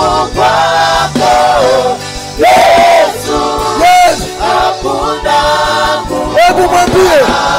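Live gospel music: a choir singing a worship song over band accompaniment.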